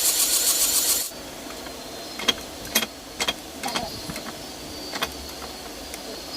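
Bosch GSR 120-LI cordless drill running briefly and stopping about a second in, followed by a few sharp clicks and knocks of the tool being handled.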